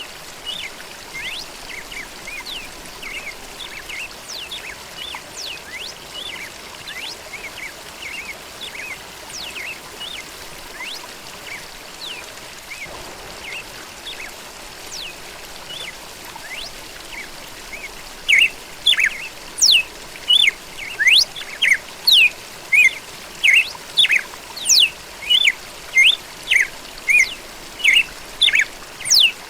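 Red-cowled cardinal (galo-da-campina) and other songbirds singing: scattered chirps and whistles at first, then from about two-thirds in a loud run of short repeated notes at about two a second.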